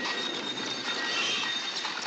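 Train sound effects made by hand on a sound-effects stage: a steady rushing, rattling noise with a faint high squeal, imitating a train running.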